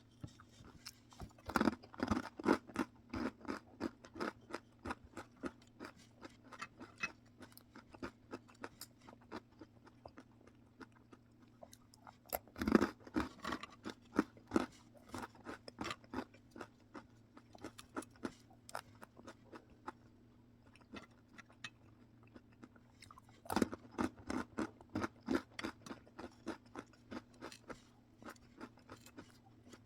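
Close-up crunching of a crisp snack being eaten: three loud bites, about ten seconds apart, each followed by several seconds of crunchy chewing that gradually fades, over a faint steady low hum.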